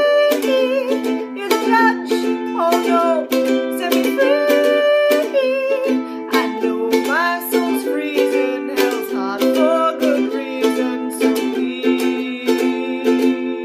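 Ukulele strummed in a steady rhythm while a woman sings along; near the end the sound begins to fade out.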